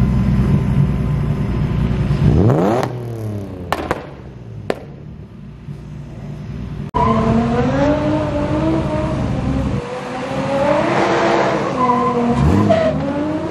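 Car engine revving: steady running, then one quick rev that climbs and falls back a couple of seconds in. After a sudden break, the revs climb and fall again several times.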